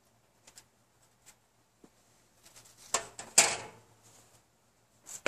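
Thin sheet-metal popcorn tin and lid being handled: a few light clicks, then a sharp metal clank about three and a half seconds in that rings out briefly.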